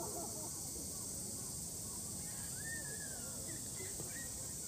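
Outdoor ambience: a steady high-pitched hiss with faint scattered calls or distant voices, one of them a rising-then-falling whistle-like glide about halfway through.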